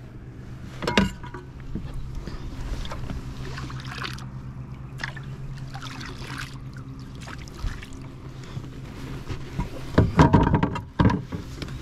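Knocks, clicks and rustling as a freshly caught bass and fishing gear are handled aboard a plastic fishing kayak, with a loud cluster of knocks near the end, over a steady low hum.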